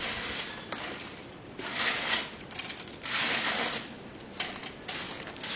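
Coke being shoveled and raked in a coal forge's fire pot: scraping, crunching strokes in several bursts about a second apart, with a sharp click near the start.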